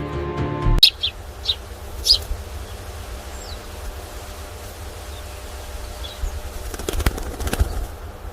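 Birds outdoors: a few short high chirps and a flutter of wings over a steady low rumble, with a cluster of sharp clicks near the end. Background music stops just under a second in.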